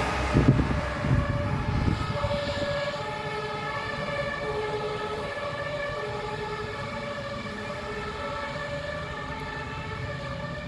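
Fire engine's two-tone siren (German Martinshorn) on an emergency run, switching back and forth between two pitches and slowly fading as it moves off. A low rumble in the first two seconds is the loudest part.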